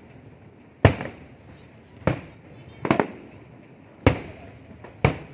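Fireworks going off: about six sharp, loud bangs, roughly one a second, with two in quick succession near the middle, each trailing off in a short echo.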